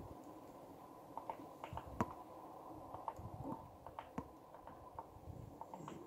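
Footsteps of someone walking on a winter path: irregular crunches and clicks underfoot, the sharpest about two seconds in, over a faint steady low rush.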